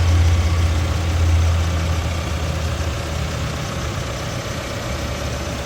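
2018 Case 580N loader backhoe's diesel engine idling steadily with a low hum that eases off a little about two seconds in.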